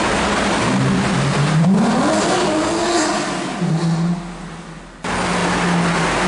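Porsche 911 GT3's flat-six engine accelerating hard past in a road tunnel, its pitch climbing, then falling and fading as the car pulls away. About five seconds in, the sound cuts abruptly to the engine running loudly again at a steady pitch, and it starts rising once more near the end.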